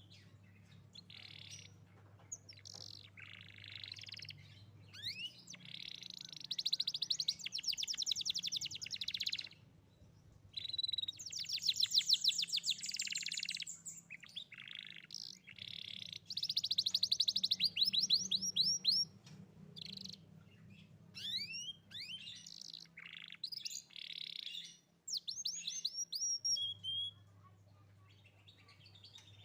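Young domestic canary singing in vigorous, fast trills and whistled sweeps, in phrases of a few seconds broken by short pauses, over a faint low hum.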